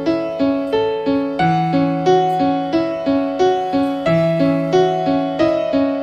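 Background music: a gentle keyboard melody in an electric-piano sound, with evenly spaced notes about three a second over a held low bass note.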